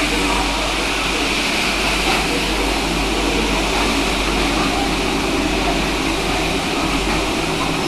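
Rubber-tyred MP05 metro train running through the station: a loud, steady rush of noise over a low rumble. Near the end a high squeal starts.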